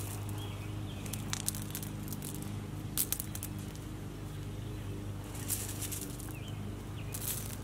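Small pebbles clicking and clattering together as a hand scoops and handles loose gravel, in a few short rattles spread through, over a steady low hum.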